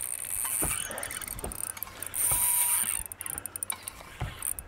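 Spinning reel being wound while a hooked fish is played in on a bent rod: an uneven hiss that comes and goes, louder for about a second starting two seconds in, with a few light knocks.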